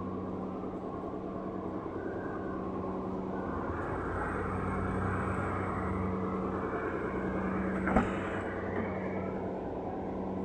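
Toyota Avanza Transmover engine running at a steady idle, swelling slightly in the middle, with one sharp click about eight seconds in.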